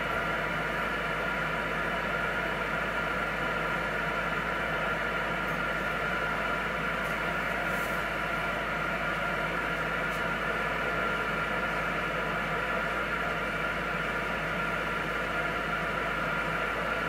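Steady static hiss from a Galaxy DX 959 CB radio's speaker with no one transmitting, with faint steady whistling tones in the noise; this is open-channel band noise while the radio sits on a skip frequency.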